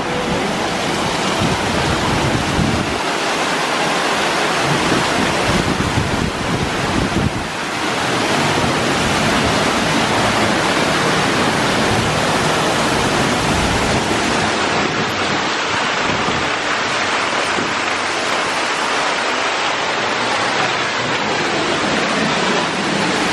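Steady rushing of a waterfall pouring down an artificial rock face.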